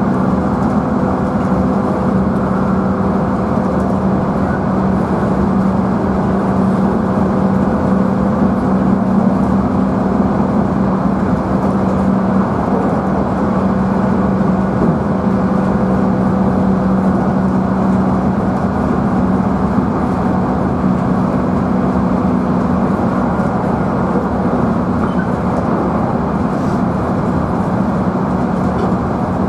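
Interior of a JR Central 311-series electric multiple unit motor car running at steady speed: a constant motor hum over the rolling noise of wheels on rail.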